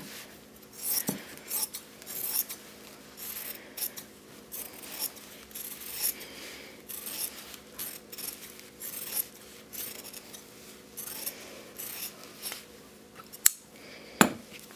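Fabric scissors snipping through organza layered with water-soluble stabilizer: a run of short crisp cuts, about one to two a second, as the embroidered flower is cut out. Two sharp clicks near the end.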